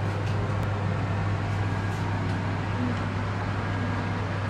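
A steady low hum over an even hiss, like a running motor or appliance, with a few faint clicks.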